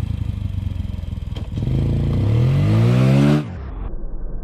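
Honda ATV engine running, then revving up with a rising pitch as the quad accelerates into a mud puddle. About three and a half seconds in the sound cuts off suddenly and gives way to a low, muffled rumble.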